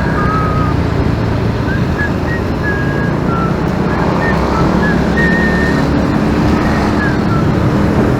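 Riding noise from a motorcycle in city traffic: a steady engine and road rumble with wind buffeting the microphone, and short high chirps scattered throughout.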